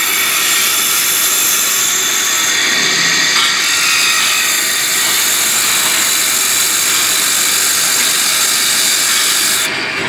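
Multi-spindle special purpose machine drilling six holes at once in a metal ceiling fan part under servo feed: a loud, steady high-pitched cutting noise over the machine's running hum. The high cutting sound falls away just before the end as the cut finishes.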